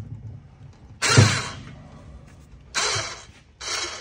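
An electric winch on an engine hoist running in short jogs, letting a transfer case down on a strap: a clunk about a second in, then two brief bursts of coarse mechanical noise near the end.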